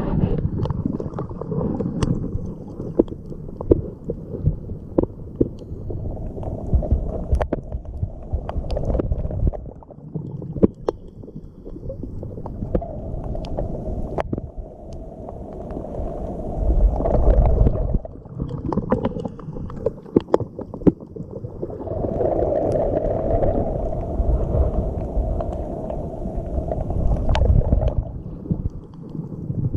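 Muffled sea water surging and gurgling, heard from underwater through a camera's waterproof housing, swelling and easing every few seconds, with scattered sharp clicks and taps.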